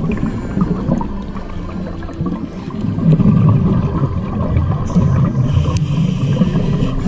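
Underwater sound of a scuba diver breathing through a regulator: bubbling, gurgling exhalation rumble, with a hiss of an inhaled breath about five seconds in.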